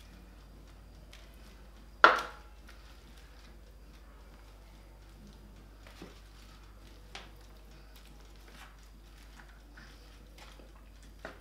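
Wooden spatula knocking and scraping against a metal roasting tray while meat and vegetables are turned: one sharp clack about two seconds in, then a few quieter knocks.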